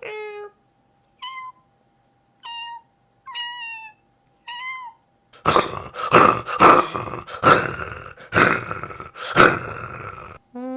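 A person imitating animals with their voice: the end of a cat's meow, then four short, high kitten mews, each falling in pitch. From about halfway through comes a run of loud, rough tiger roars.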